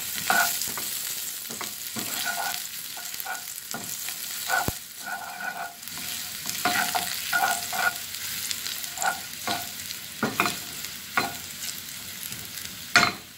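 Chopped garlic sizzling in hot oil in a nonstick frying pan, stirred with a wooden spatula: a steady sizzle with repeated irregular scrapes and knocks of the spatula on the pan, the loudest knock near the end.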